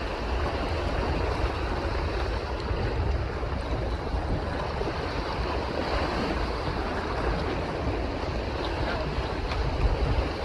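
Steady wind buffeting the microphone, with water washing against a boat.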